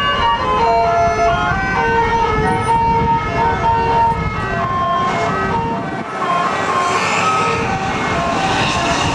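Bus telolet horn, a multi-tone air horn, playing a quick tune of stepped notes. A rushing noise builds over the last few seconds.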